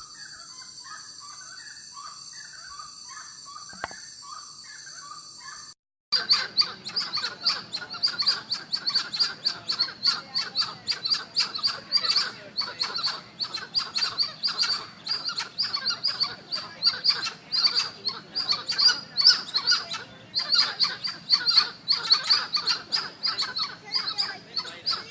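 Recorded chirping animal calls. For about six seconds there is a run of short chirps, about two a second, over a steady high insect-like drone. Then, after an abrupt cut, a dense, fast chatter of high chirps runs on.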